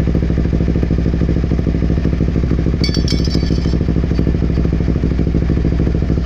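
Motorcycle engine idling steadily through a slip-on exhaust with the baffle removed. A brief high-pitched jingle sounds about three seconds in.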